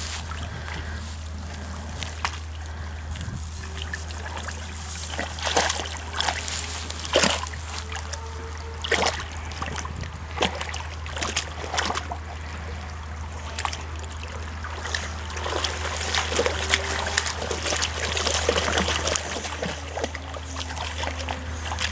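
A small dog wading in a shallow stream, its paws splashing the water in short irregular splashes, over the steady trickle of the running creek.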